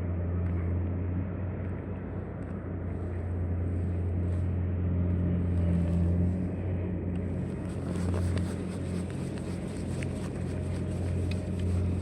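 An engine running steadily with a constant low hum; about seven seconds in, a hiss and small ticks are added over it.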